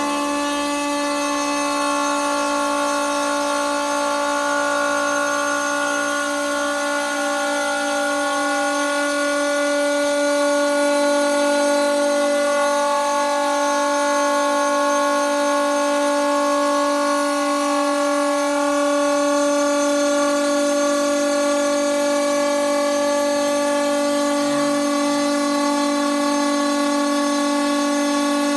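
CNC machine spindle running with a steady pitched whine, cutting 3 cm quartz stone.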